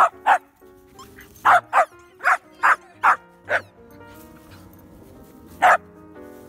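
Corgi puppy barking in short, sharp yaps: two at the start, a run of six at about two a second, then one more near the end. These are play barks at a tennis ball held under a foot.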